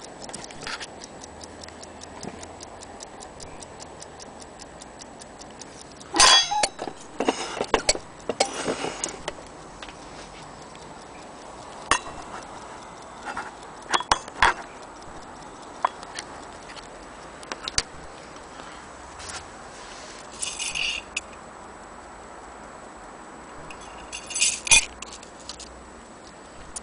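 Antique French clock's escapement ticking quickly and evenly, broken up by loud clatter and knocks as the clock and its case are handled, the heaviest about six to nine seconds in and again near the end.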